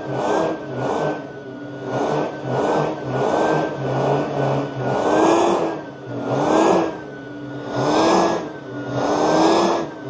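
Riccar R10S SupraLite upright vacuum running on carpet. Its motor hum is steady and wavers slightly in pitch, while the suction noise swells and fades every second or so as the vacuum is pushed back and forth.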